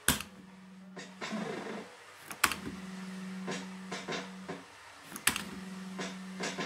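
JPM System 80 fruit machine being played: three sharp clacks about two and a half seconds apart as each spin starts, each followed by a steady low electronic tone while the reels spin, with short beeping sound effects between spins.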